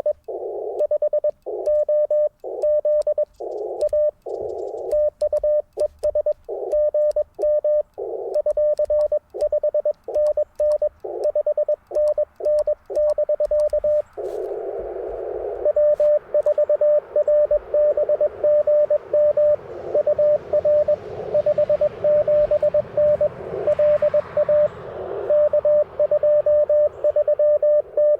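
Morse code (CW) from another station coming through an Icom IC-705 receiver: a steady tone of about 600 Hz keyed in dits and dahs, with band noise hissing in the gaps between characters. The tone drops out briefly about halfway through, leaving only hiss, then the sending resumes.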